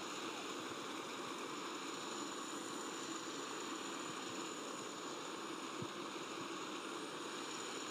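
Steady even hiss of background noise with a thin high-pitched whine running through it.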